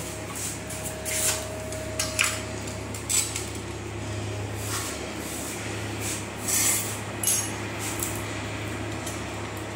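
Ceramic tile strip being handled and worked on a concrete floor: a few short scrapes and clinks, several in the first three seconds and two more about six to seven seconds in, over a steady low hum.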